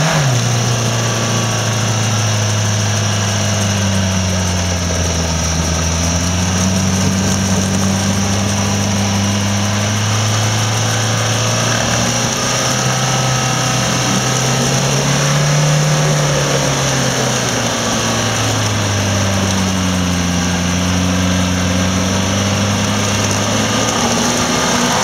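An off-road 4x4's engine running under load, its revs slowly rising and falling again and again as the driver works the throttle.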